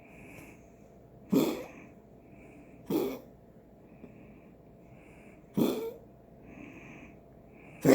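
A pet coughing: four sharp single coughs, one every one to two and a half seconds, with fainter short breaths between them.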